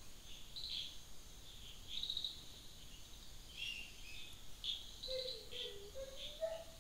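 Faint insect chirping, short high chirps every second or so over a steady high trill. A faint low wavering tone comes in during the last two seconds.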